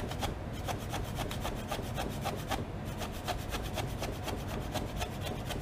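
Kitchen knife rapidly julienning young ginger on a cutting board: an even run of quick cutting taps, about seven a second, pausing briefly twice.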